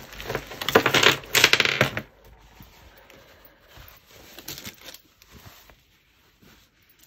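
A tangle of beaded necklaces and costume jewellery tipped out of a fabric bag onto a table, the beads clattering together for about two seconds, then a few faint clicks as pieces settle.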